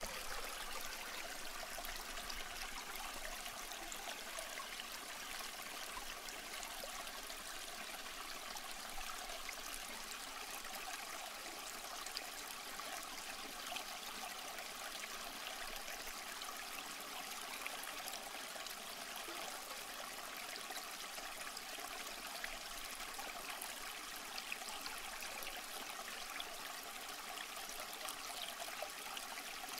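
Steady rush of a flowing stream, an even hiss without breaks.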